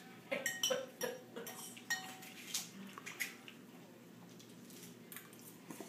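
Forks clinking and scraping against dinner plates during a meal: a string of light clinks over the first three seconds or so, then quieter.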